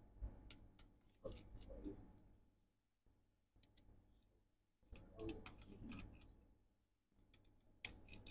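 Faint clicks and ticks of a small precision screwdriver working the screws inside a MacBook Pro, in a few short clusters against near silence.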